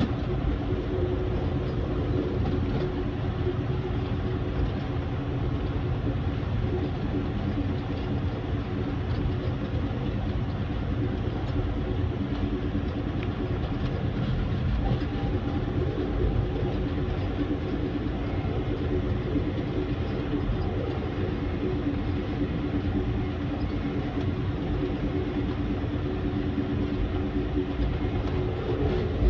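Amtrak Texas Eagle passenger train rolling along the track, heard from on board: a steady rumble of wheels on rail with a steady hum under it, no rhythmic rail-joint clicks.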